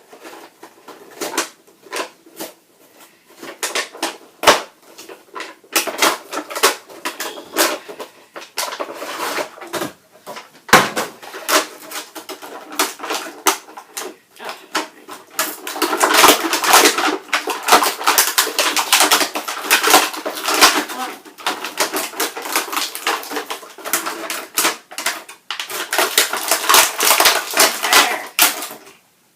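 Action-figure packaging being opened by hand: plastic and cardboard crackling, clicking and rustling in quick irregular runs, sparse at first and almost continuous through the second half.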